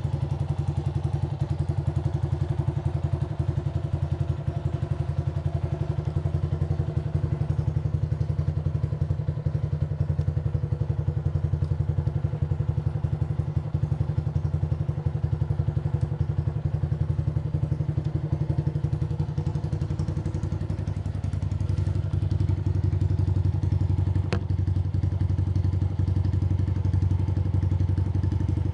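Honda CG Titan 125's single-cylinder four-stroke engine idling steadily through an aftermarket Aluminium RS muffler with a figure-8 outlet, a low even exhaust pulse. It becomes a little louder about two-thirds of the way in, and there is one brief click shortly after.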